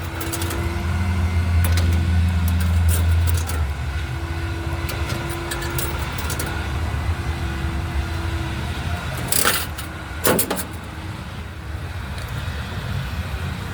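A car engine running steadily at idle, its low hum strongest for the first few seconds, with scattered clicks and two short rushing bursts about nine and ten seconds in.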